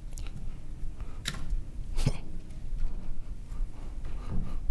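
Pause in a talk at a podium microphone: steady low room hum with two short, faint clicks about one and two seconds in.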